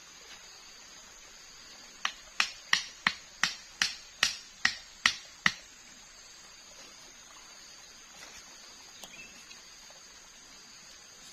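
A machete striking wooden stakes about ten times in quick succession, roughly three sharp knocks a second, each with a short ring, starting about two seconds in and stopping after some three and a half seconds.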